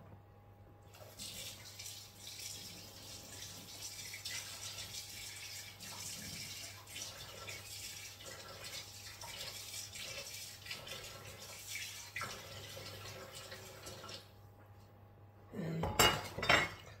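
Kitchen mixer tap running into a stainless sink, starting about a second in and shut off about fourteen seconds in. Near the end come a few loud knocks.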